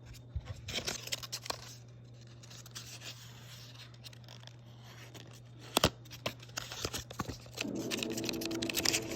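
Pen scratching on paper in a journal in short bursts, with one sharp tap just before the middle and a steady low hum underneath.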